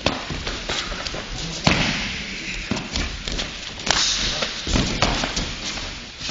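Kyokushin karate sparring: punches and kicks landing on bodies and feet stepping on gym mats, making irregular thuds, the loudest a little under two seconds in and again about four seconds in, in a large hall.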